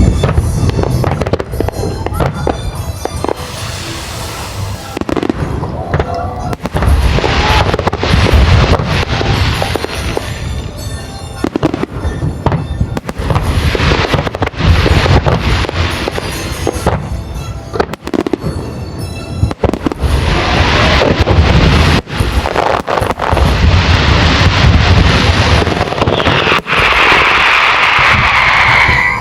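Fireworks display: aerial shells bursting in quick, overlapping succession with crackling, and a dense sustained hiss near the end.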